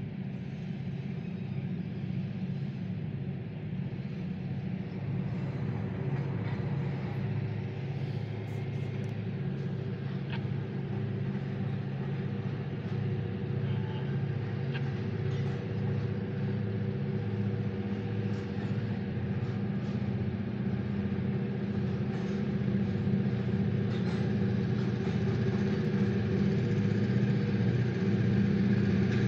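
Diesel locomotive engine running steadily under load as it pulls a train of new steel slabs up out of the mill, growing gradually louder as it approaches, with a few faint clicks over it.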